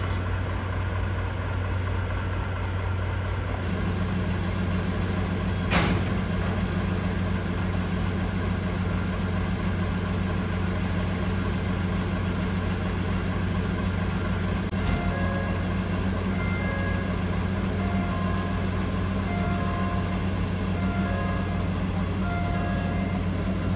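JNR Class DE10 diesel locomotive idling steadily while it is turned on a turntable. A second steady hum joins about four seconds in, with a sharp knock about six seconds in and a lighter one near fifteen.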